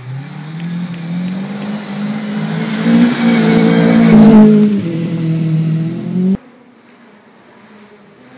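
A rally car's engine climbs in pitch as it comes up the gravel stage at full throttle and passes close about four seconds in, with a rush of gravel and tyre noise. The engine note drops as it goes by, then climbs again before the sound cuts off suddenly about six seconds in.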